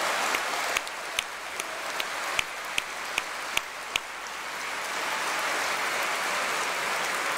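Audience applauding steadily. For the first four seconds, single sharp claps stand out at an even beat of about two and a half a second.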